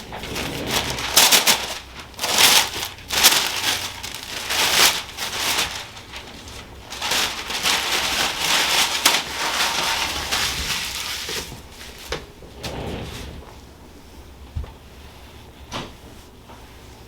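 Rustling and rubbing of hands, clothing and the treatment table as a chiropractor handles and positions a patient lying face up, in uneven surges for about ten seconds, then quieter with a couple of short clicks.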